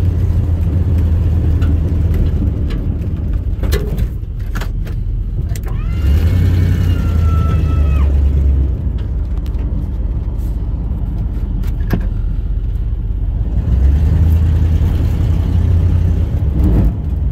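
Plow truck's engine running under load, heard from inside the cab, a low drone that swells twice as the truck pushes snow. A high whine with several tones lasts about two seconds, starting about six seconds in, and a few sharp knocks come near four and twelve seconds in.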